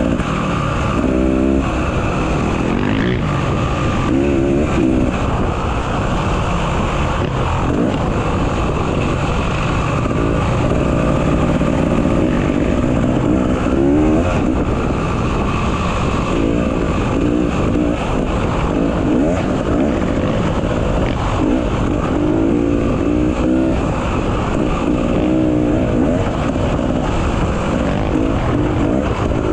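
Off-road motorcycle engine running and revving up and down again and again, as on a trail ride, over a steady rush of wind noise.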